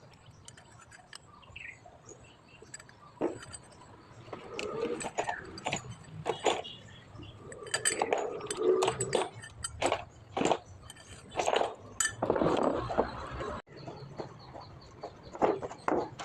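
Irregular metallic clinks and knocks of hand tools and metal parts being handled during hydraulic pump repair work.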